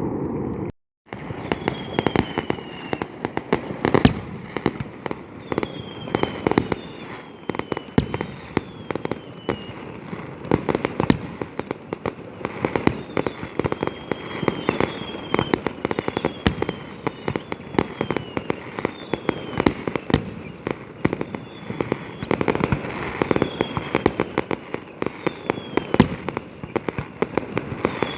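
Fireworks going off: a dense, rapid crackle of small bangs and cracks, with short falling whistles every second or two. There is a brief break about a second in.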